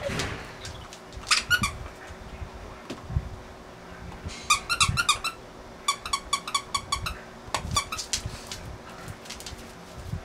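A dog toy's squeaker squeezed in quick runs of short, high squeaks, several a second, with a few soft knocks on a wooden floor.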